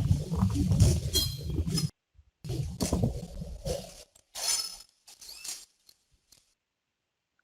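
Metal clinks and knocks from handling an equipment enclosure as it is closed up, with rumbling handling noise between them. The sound cuts out completely in short gaps and near the end.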